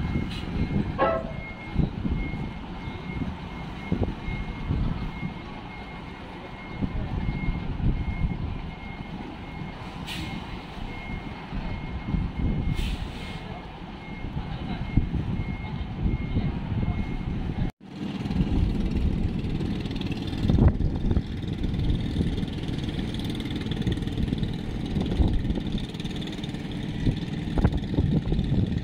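A box truck's reversing alarm beeping steadily at one high pitch over the low rumble of its diesel engine as it backs up a steel ferry ramp. About two-thirds of the way in the beeping stops abruptly, leaving only a low rumble.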